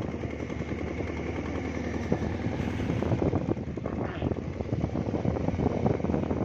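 Motorcycle engine running steadily at low road speed, a fast, even beat of exhaust pulses.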